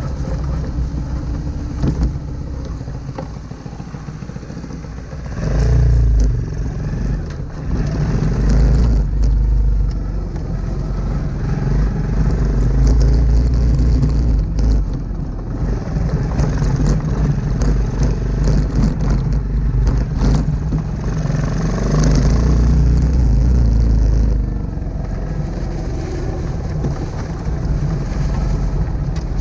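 Honda Super Cub C125's single-cylinder four-stroke engine running as it rides a dirt forest trail on knobby tyres. The engine swells louder about six seconds in and again from about twelve to twenty-four seconds, with scattered clicks and crackles over it.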